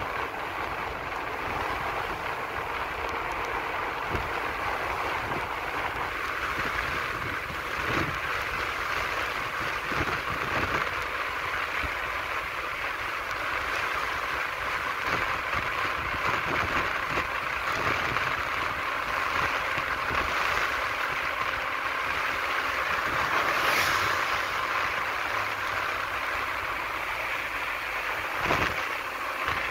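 Steady rush of wind on the microphone and wheels rolling over asphalt during a fast downhill descent, with a few short knocks and a brief louder swell about three quarters of the way through.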